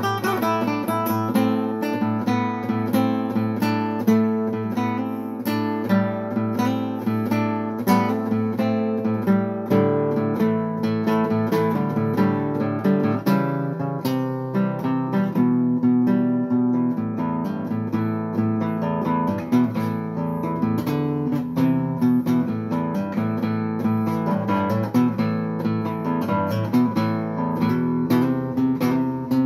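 Instrumental music led by plucked acoustic guitar, with a run of picked notes over changing bass notes.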